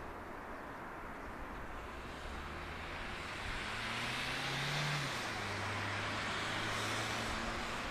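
Jet airliner engine noise swelling as the plane passes, loudest about five seconds in, with a low hum that drops in pitch as it goes by.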